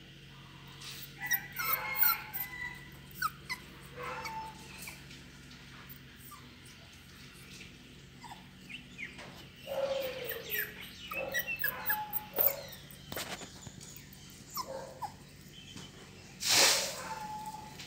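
Beagle puppies whimpering and giving short, scattered yelps, with a few sharp clicks between them and one louder cry near the end.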